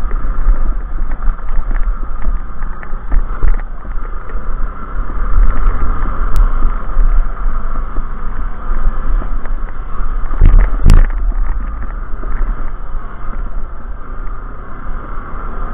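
Off-road motorcycle engine running under load while riding up a rough gravel track, with heavy rumbling wind buffeting on the microphone. A loud knock about eleven seconds in.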